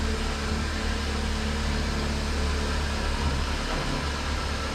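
2000 Toyota Corolla's four-cylinder engine running with a steady low hum as the lifted car is driven through a turn on oversized tyres, with no tyre rub heard.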